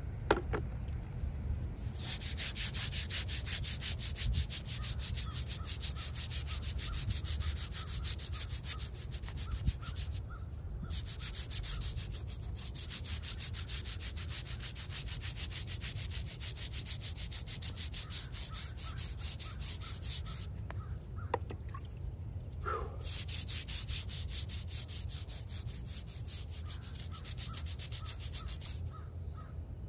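A small hand brush scrubbing a headstone in quick back-and-forth strokes, in three spells with short breaks about ten and twenty-one seconds in. There is a sharp tap near the start.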